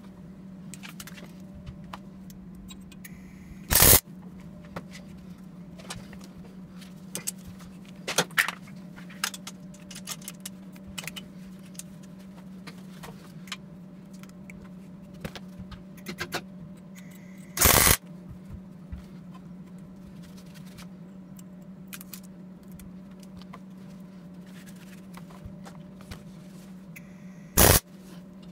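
Three short bursts of arc welding, each a fraction of a second: tack welds joining the sections of a motorcycle turbo exhaust pipe. Light clicks of the pipe and tools being handled come between them, over a steady low hum.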